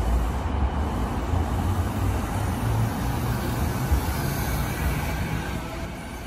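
JR East E233-5000 series electric train pulling out of the platform: a steady low rumble with faint motor tones that climb in pitch as it gathers speed.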